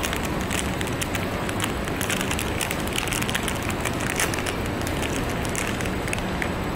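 Foil wrapper of a blind-bag collectible figure crinkling as it is handled and torn open by hand, a quick irregular run of crackles over steady background noise.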